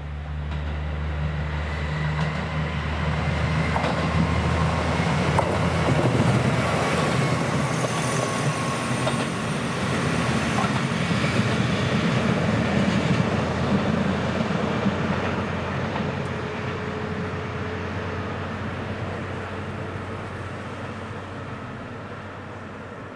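JR Central KiHa 25 two-car diesel railcar approaching, passing close by and receding: a steady diesel engine drone at first, building into a louder rumble of engines and wheels on the rails at its peak, then slowly fading away.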